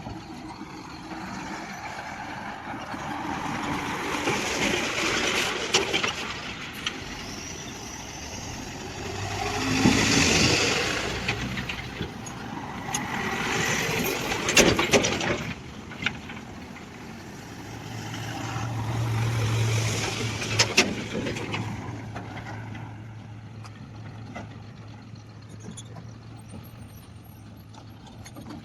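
Large Kobelco excavator at work: its diesel engine and hydraulics surge in four long swells, with a few sharp clanks near the peaks. Under them runs a steady low engine hum that grows stronger in the second half.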